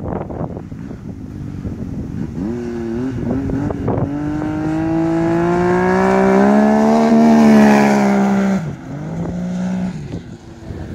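Snowmobile engine breathing through a Turbo Dynamics Turbo Force muffler. There are a couple of quick throttle blips, then the engine pulls hard with its pitch and loudness climbing for several seconds, and then drops off sharply to a lower steady note. It has a loud, deep exhaust tone.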